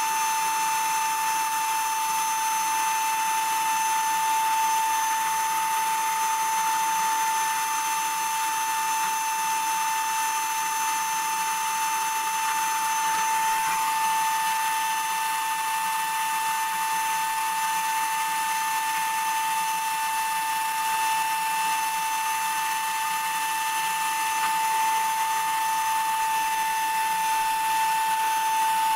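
Electric HVLP paint sprayer's turbine running steadily with a high, even whine.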